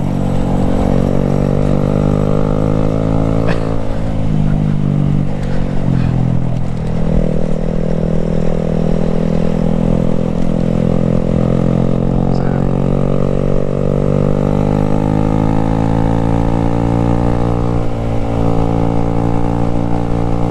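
Honda Grom's 125 cc single-cylinder engine running under load off-road, its revs rising and falling as the throttle opens and closes, the exhaust run without its baffle.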